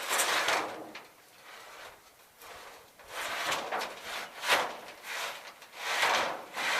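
Repeated scraping and sliding noises, about six in a row at uneven intervals, each lasting up to half a second.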